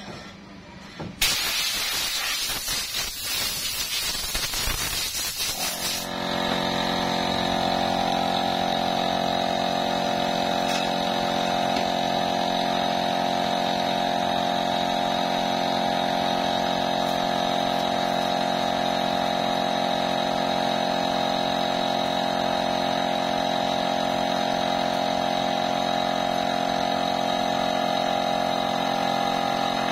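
A loud rushing hiss for about five seconds, then a machine starts up about six seconds in and runs with a steady, even hum and a high whine.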